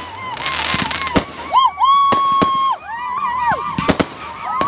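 Consumer fireworks going off: several sharp bangs, with a hissing crackle in the first second. High held tones rise and fall over the bangs.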